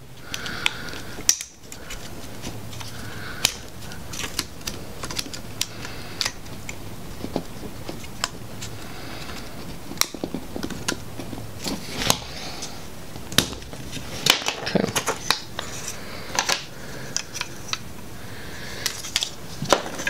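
Scattered sharp clicks and taps of hard plastic as the cover is pried and squeezed off a GM PCM wiring-harness connector, its small locking tabs being released.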